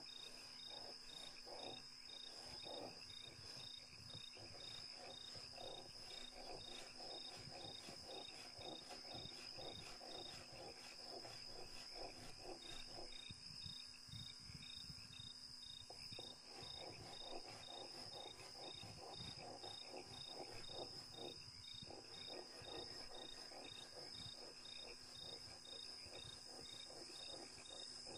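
Faint, steady high chirring of insects, with a rapid soft pulsing underneath that drops out for a few seconds about halfway through.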